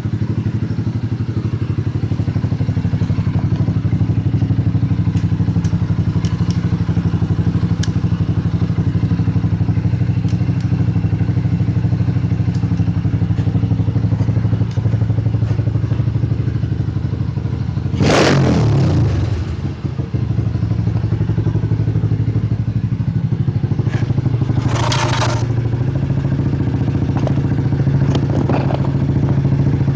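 Dirt bike engine idling steadily, with one brief louder surge about 18 seconds in, and a short higher-pitched sound about 25 seconds in.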